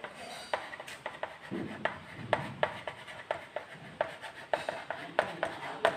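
Chalk writing on a chalkboard: a quick run of short scratchy strokes and sharp taps as a word is written out.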